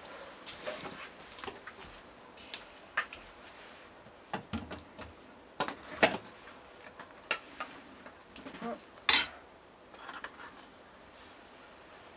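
Metal serving spoon clinking and scraping against steel plates and a metal cooking pot as rice is dished out, in scattered irregular knocks, the loudest about six and nine seconds in.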